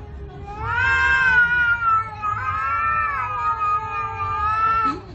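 A house cat yowling at another cat face to face: two long, drawn-out threat calls in a row. The first rises and then sags in pitch, and the second holds steadier.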